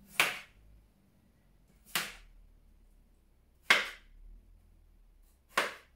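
Florist's anchor tape pulled and torn in four short, sharp rips, about one every two seconds, as floral foam bricks are taped onto a cable tray.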